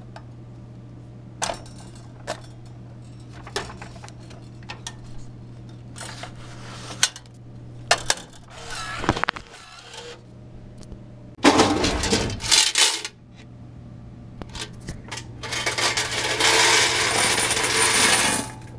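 Coins being emptied from a snack vending machine's coin box into a bag: a long, loud jingling rush of about three seconds near the end. Before it come scattered clicks and metal clatters as the machine's bill acceptor and coin mechanism are handled, with one louder clatter past the middle, all over a steady low hum.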